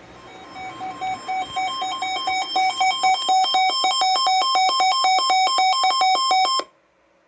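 Weather radio receiver's alert alarm: rapid high-low alternating electronic beeps, several a second, growing louder over the first few seconds and then cutting off suddenly. It signals that a severe thunderstorm warning is being received.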